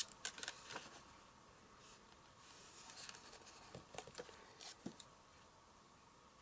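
Faint handling of die-cut cardstock pieces: a few light taps and clicks with a brief soft rustle, as a paper straw is slipped into a paper cup.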